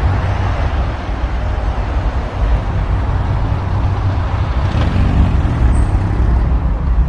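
A dense, steady rumble and hiss, heavy in the low end, that cuts in abruptly at the start.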